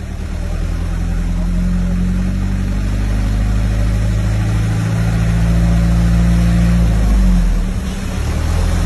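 Engine of a large road vehicle running and pulling steadily, a low drone that drops in pitch and level a little past seven seconds in as it eases off.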